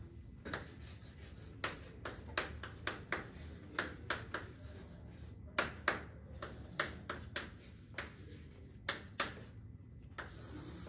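Chalk writing on a chalkboard: a string of short, scratchy strokes and taps at an uneven pace, about two or three a second, as letters are written. Near the end comes one longer stroke as a line is drawn under the words.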